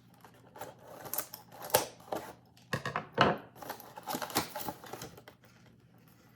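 Snack packaging being opened by hand: irregular clicks, rustling and tearing, with the sharpest snaps about two, three and four seconds in.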